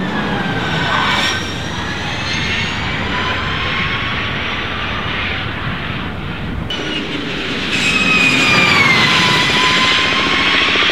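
The electric motors of the Ford SuperVan 4 whining as the van drives up the hill, high whine tones that slide in pitch over tyre and wind noise. Near the end a whine falls steadily in pitch as the van pulls away.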